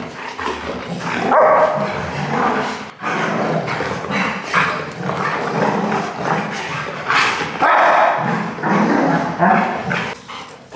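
Dogs barking and yipping as they play-fight, rough and rowdy.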